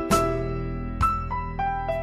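Gentle background piano music: a slow melody of single struck notes over sustained lower notes.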